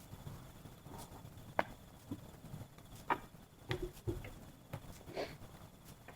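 Scattered sharp clicks and light knocks, roughly one a second at irregular intervals, over a faint background.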